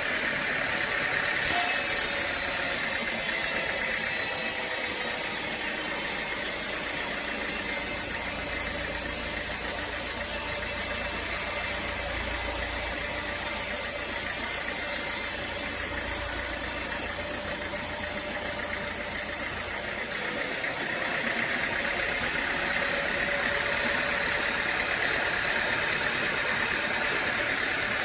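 Sawmill machinery running steadily, a motor drone with a steady whine. A sharp knock comes about a second and a half in, and an added high hiss runs until about two-thirds of the way through.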